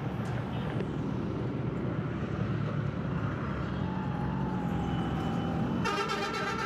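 Small single-cylinder two-stroke motorcycle engine, a Yamaha YB100, running steadily under way, with wind and road noise. Near the end a pitched buzzing sound cuts in over it.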